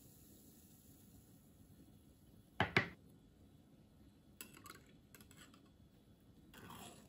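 Glass dessert cups and a metal ladle being handled over a bowl of cider jelly liquid: a sharp double clink a little under three seconds in, then a few lighter clicks and a brief scrape near the end.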